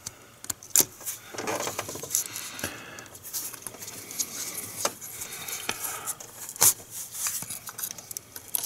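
Small clicks and rattles of a plastic wiring connector being worked off a variable valve timing solenoid, with a sharper click about two-thirds of the way through.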